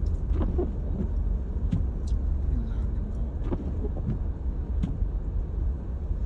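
Steady low rumble of a small car driving on a snowy road, heard from inside the cabin, with a few short sharp clicks scattered through it.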